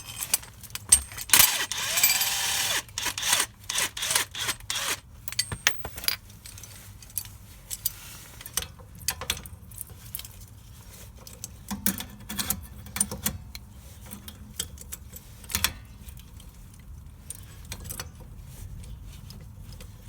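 Metal tools clinking and knocking while a bearing puller is worked on the rear hub of a Citroën Xsara Picasso. About a second in there is a short burst of a power tool rattling.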